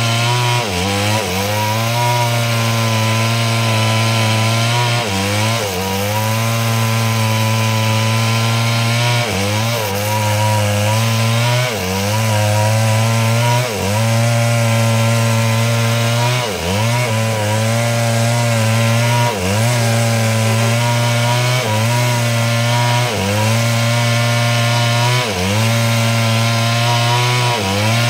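Stihl two-stroke chainsaw running at high revs under load while cutting wood lengthwise into planks. Its pitch dips briefly and recovers about every two seconds.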